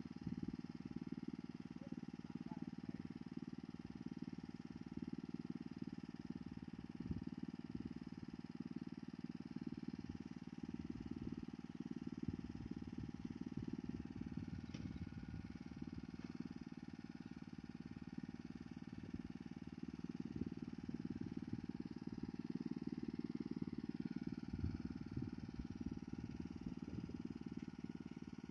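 Small engine of a rice transplanting machine running steadily.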